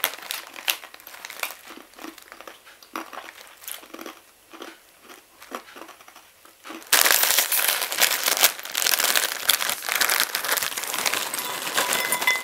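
Crunchy dried rye bread sticks being chewed, with faint crackles from the snack packet. About seven seconds in, loud continuous crinkling starts as a plastic bread bag is handled.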